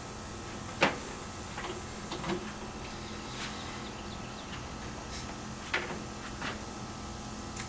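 A few short knocks and clicks of tools and parts being handled and set down on a workbench, the loudest about a second in, over a steady electrical hum with a faint high whine.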